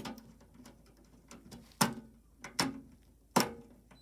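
Sharp clicks and knocks of small hard objects, tools and parts, being handled and set down. There are four distinct ones, the loudest about two and three and a half seconds in, with fainter ticks between them.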